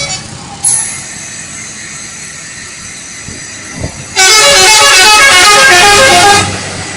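Bus 'telolet' multi-tone musical horn, very loud, playing a quick run of changing notes for about two seconds, starting about four seconds in, over lower street noise.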